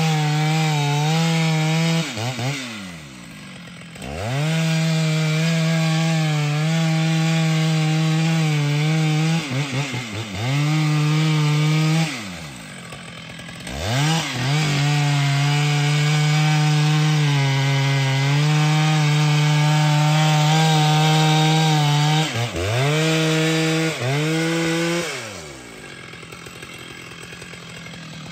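Large two-stroke chainsaw cutting wood at full throttle with a steady high engine note. Several times the throttle is let off, the pitch slides down to a low idle for a second or two, and the engine revs back up into the cut.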